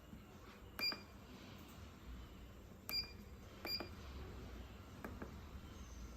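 Three short electronic beeps, each starting with a click, about a second in, near three seconds and again shortly after, with a few fainter clicks later: buttons being pressed on a lathe's digital readout.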